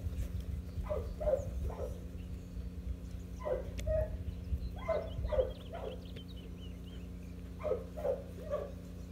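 Puppy barking in short clusters of two to four barks every couple of seconds: frustration barking while held back on the leash from the flirt-pole toy.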